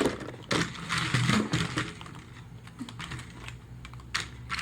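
Toy-grade New Bright radio-control truck driving on a floor: its small motor and plastic gears whir with a steady low hum under a run of irregular clicks and clatter.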